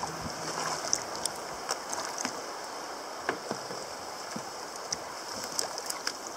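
Water lapping and trickling around a sea kayak's hull in shallow water, with scattered small splashes and drips from paddles.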